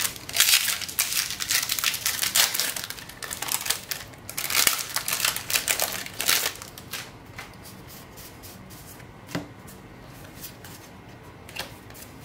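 Foil booster-pack wrapper crinkling and tearing as it is opened, in two busy stretches over the first six seconds or so. After that come a few light clicks of cards being handled.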